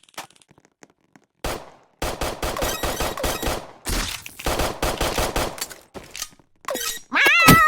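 A fast, rattling run of crackling clicks, then a cat meows once, loudly, near the end.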